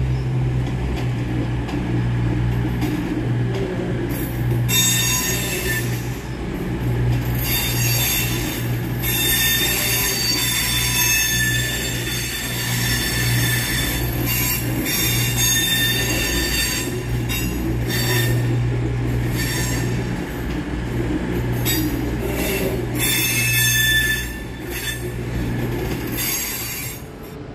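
Class 221 Super Voyager diesel multiple unit moving through the station with its engines droning low and steady. From about five seconds in, its wheels squeal high-pitched in repeated stretches on the curved track.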